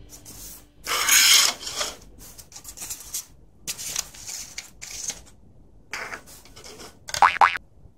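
Plastic rubbing and scraping in several short bursts as the screw cap is twisted off a small plastic bottle, the loudest about a second in, with a brief squeak near the end.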